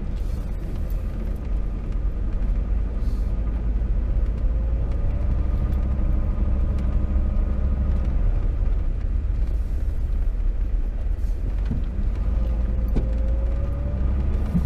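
A vehicle's engine running steadily at low speed with its tyres rolling over a gravel road, a continuous low rumble heard from inside the cab. A faint rising whine comes in briefly twice.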